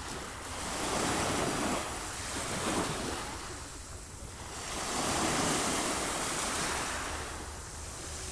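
Sea waves washing in on the shore, the surf swelling and falling away twice in slow surges, with some wind on the microphone.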